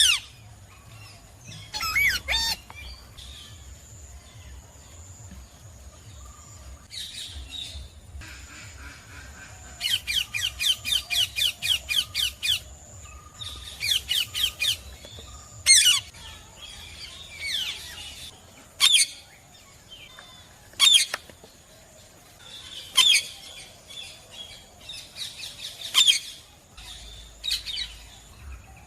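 Parrots squawking: short, sharp, high calls every second or two, with quick chattering runs of repeated calls about ten and fourteen seconds in.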